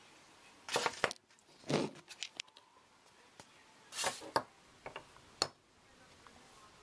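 A foil sweet wrapper crinkling as it is unwrapped by hand, in several short bursts of rustling, with a few light taps as the chocolate is set down on the kitchen worktop.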